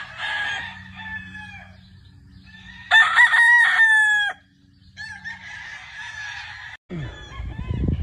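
Gamefowl roosters crowing: one crow trails off just after the start, a loud crow comes about three seconds in, and a fainter one follows about five seconds in.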